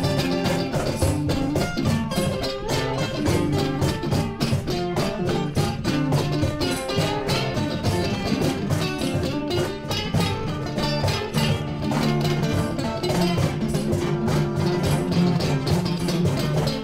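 Live band music led by an acoustic-electric guitar strummed hard and fast, with percussion beneath it.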